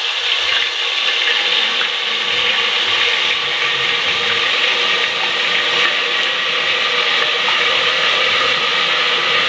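Ginger-garlic paste frying in hot oil in an aluminium pressure cooker: a loud, steady sizzle and crackle.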